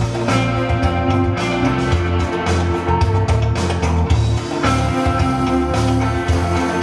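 Background rock music with guitar, bass and drums, a steady beat.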